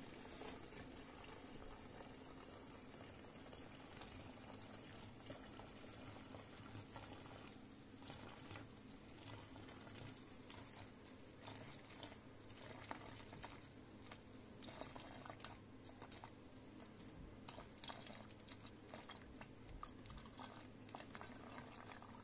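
Faint, steady trickle of green injector-flushing fluid poured from a metal can into the narrow neck of a plastic bottle, with small ticks of the can against the bottle.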